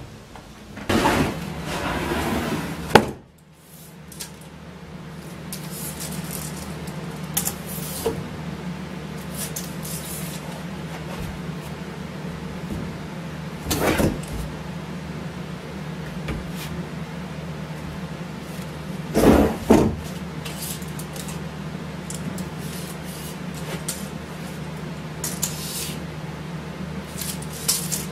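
A wooden double-hinged gate swinging on its hinges, with a sharp snap about three seconds in. Then a steady low hum, with a few knocks of wooden boards being handled on a workbench, the loudest a double knock later on.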